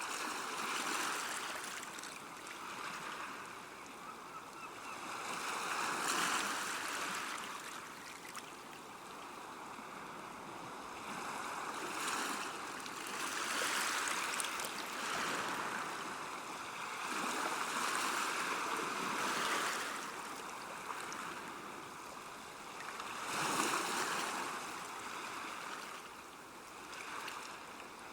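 Calm sea washing gently on a shore: small waves breaking and washing back, swelling and ebbing every few seconds.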